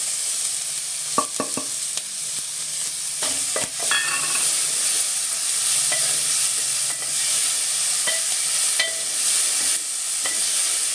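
Chicken pieces, freshly added to vegetables frying in oil, sizzling in a pan with a steady hiss. A spoon stirs them, knocking and scraping against the pan now and then.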